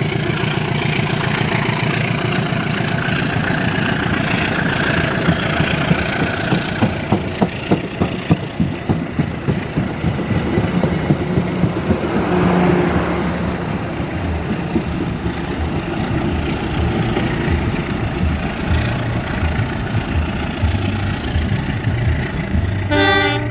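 Passenger coaches of a locomotive-hauled train rolling past and away, wheels clattering rhythmically over the rail joints, heaviest a third of the way in. A brief horn-like toot right at the end.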